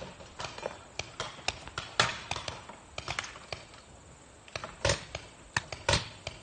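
Paintball markers firing in quick, irregular pops, several a second, with a few louder shots near the middle and toward the end.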